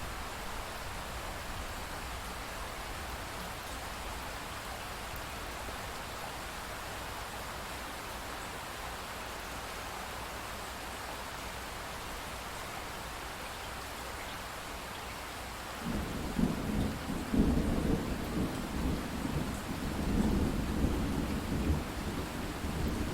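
Steady rainfall as an even hiss. About two-thirds of the way through, a deep rumble of thunder sets in and rolls on, swelling and fading under the rain.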